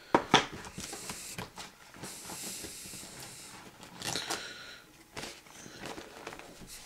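Packaging handling: a few sharp knocks of the cardboard box being moved near the start, then soft rustling and scattered clicks as the tablet is picked up in its paper wrap.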